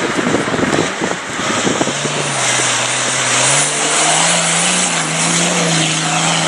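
Diesel off-road vehicle engine running under load. Its pitch steps up about halfway through, over a loud hissing rush, with clattering knocks in the first couple of seconds.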